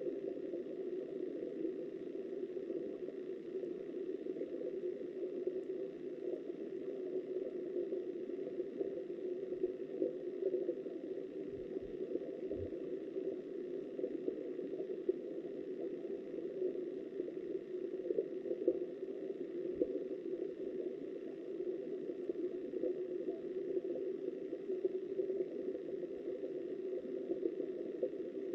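Steady, muffled rush of river current recorded underwater, dull and low with little treble.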